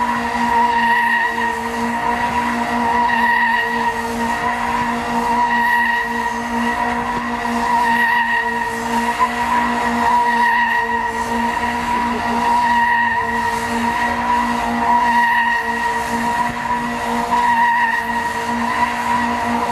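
A stunt car's engine runs at steady revs under tyre noise during a wheel-change stunt, with one held engine note that swells and fades every two seconds or so.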